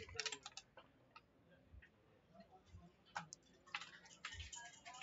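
Faint, scattered clacks of backgammon checkers being picked up and set down on the board: a few quick ones at the start, a single sharper one about three seconds in, and a short cluster just after.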